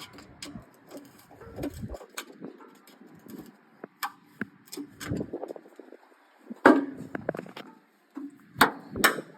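Irregular clicks, knocks and scrapes of a screwdriver working at a tight screw stuck in with paint, with a few sharper clicks in the second half.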